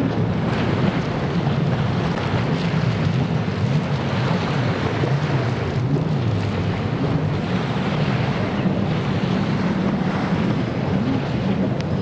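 Racing jet ski engines running at speed, their note rising and falling as the riders throttle through a buoy turn, over wind buffeting the microphone and the wash of waves.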